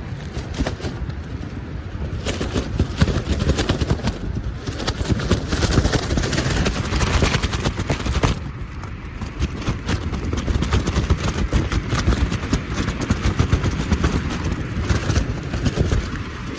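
Gale-force wind, over 50 mph, gusting against the phone's microphone: a heavy low rumble with rapid crackling and snapping through it. It eases briefly about four and eight seconds in.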